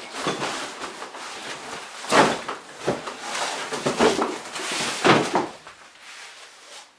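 Cardboard packaging and packed bike parts being handled and pulled apart: irregular rustling and scraping with several sharp knocks, the loudest about two and five seconds in, quieter near the end.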